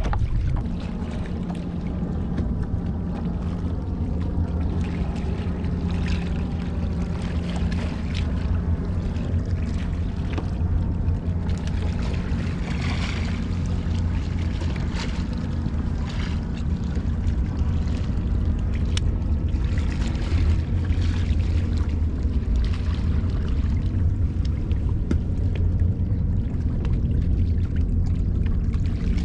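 Steady low drone of a boat engine running, with a constant hum and slowly wavering tone, over water noise.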